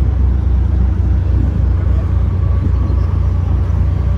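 A car engine idling with a steady, deep low rumble.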